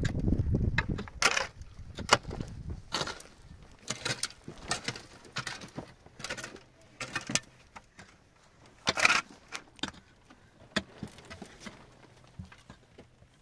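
Irregular scrapes and knocks with a few sharp clicks between them, the loudest about nine seconds in; a low rumble underneath fades out in the first couple of seconds.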